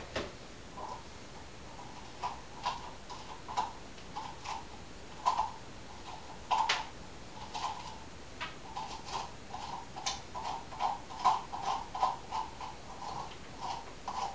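A spoon scraping seeds and stringy pulp out of a ripe squash in repeated short, uneven strokes, with a few sharp clicks in between. The strokes come faster towards the end.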